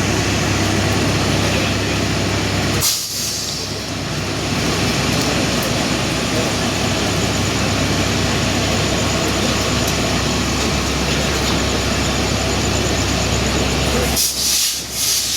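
Meter-gauge train running through the station: a steady rumble of the diesel locomotive and coaches on the rails. Two short air hisses come about three seconds in and again near the end.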